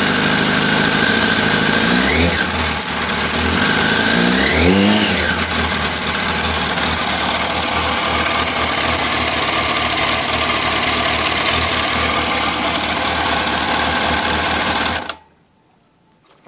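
Yamaha R1's inline-four engine idling steadily, blipped twice with short throttle revs about two and four and a half seconds in, then shut off abruptly about fifteen seconds in, leaving near silence with a few faint clicks.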